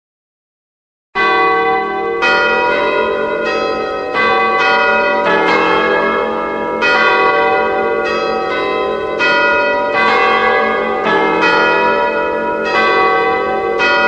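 A deep, loud church bell rung over and over, after about a second of silence: roughly one stroke a second, each stroke ringing on under the next.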